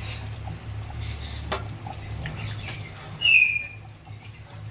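A spoon clicking against an aluminium kadhai as mutton pieces are lifted out of simmering gravy, over a steady low hum. About three seconds in comes a short high squeal that falls in pitch, the loudest sound.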